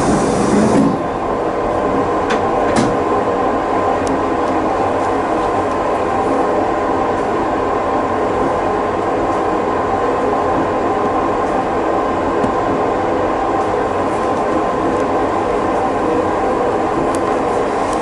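Steady hum of a 185 series electric train's on-board equipment, heard inside the driver's cab while the train stands at a station, with a held steady tone. A rushing noise cuts off about a second in, and a couple of faint clicks follow.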